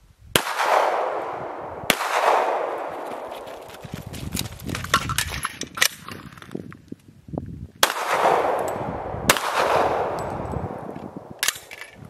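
Handgun shots: four loud cracks in two pairs about a second and a half apart, each followed by a long echo rolling back off the hillside. A few fainter sharp cracks fall in between and near the end.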